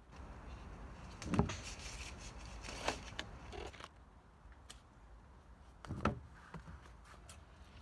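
Tomatoes being picked off the vines and set into a plastic harvest crate: rustling of the plants and handling, with two dull knocks, about a second and a half in and again about six seconds in.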